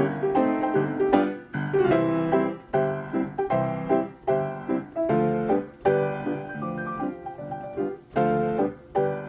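Player piano playing a tune, with chords and melody notes struck in quick succession, several notes a second.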